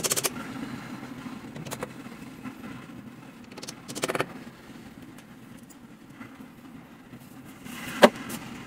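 Short bursts of very rapid clicking from a screwdriver working fittings into a particleboard cabinet frame: one at the start and one about four seconds in. Near the end comes a single sharp knock as a wooden panel is handled, the loudest sound.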